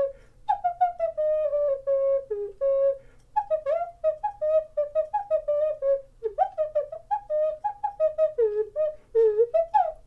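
Ceramic ocarina playing a melody of many short notes, with quick bends and slides between pitches, in a pure, breathy, flute-like tone.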